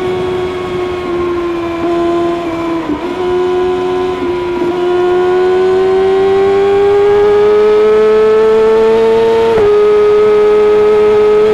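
Kawasaki ZX-6R inline-four with an Akrapovic exhaust running at high revs under way. The engine note sags slightly with two brief dips, then climbs steadily. It breaks sharply and drops a little in pitch about nine and a half seconds in, as at a quick gear change.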